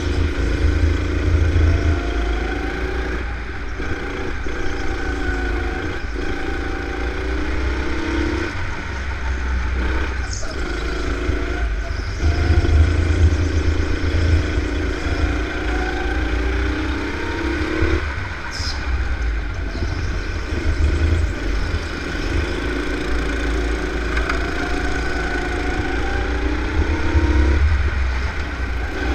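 Go-kart engine running hard, its pitch climbing steadily and then dropping off sharply, three times over, with a heavy low rumble underneath.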